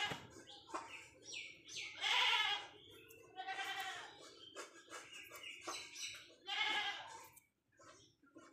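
Four drawn-out, wavering animal calls, roughly two seconds apart, with short high chirps in between.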